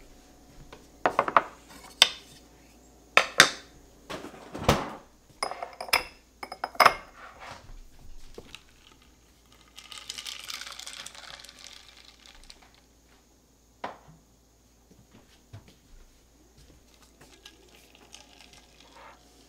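Glassware and a metal utensil handled on a kitchen countertop: a string of sharp clinks and knocks as glass tumblers and a scoop are set down, then a few seconds of soft rustling, one more knock and small quiet handling sounds.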